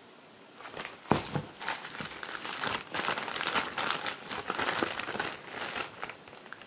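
Clear plastic parts bags crinkling and crackling as they are handled and shuffled, starting about half a second in and dying away near the end, with the sharpest crackle just after a second in.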